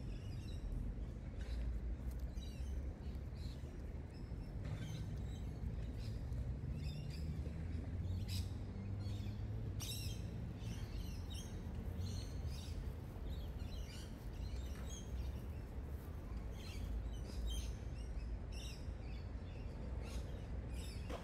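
Birds chirping and calling in short, scattered bursts over a steady low background rumble in an urban park.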